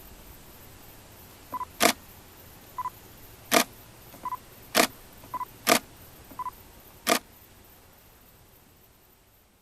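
A camera taking five shots: each time a short double electronic beep of focus confirmation, then the sharp click of the shutter, repeating about every second and a quarter. The steady faint background fades away near the end.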